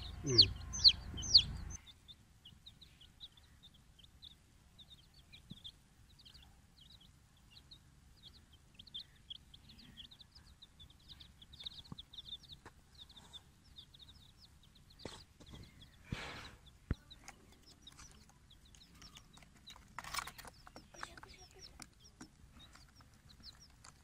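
Baby chicks peeping: loud, rapid, falling cheeps over a low rumble for the first two seconds, then fainter, steady peeping with a few soft knocks and rustles.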